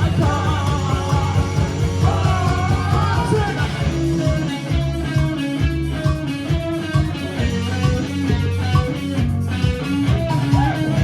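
Live indie rock band playing loud through a PA: a sung line in the first few seconds, then the electric guitars, bass and drums carry on alone with a steady beat.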